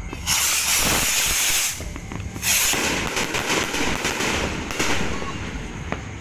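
A barrage of kwitis, small Filipino stick skyrockets, launching: two loud bursts of rocket hiss, the first about a second and a half long, the second about two seconds, with rapid sharp pops through the second. A single sharp pop near the end.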